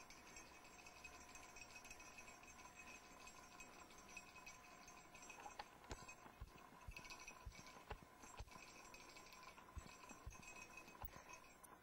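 Near silence: room tone with a faint steady hum, and scattered faint clicks in the second half.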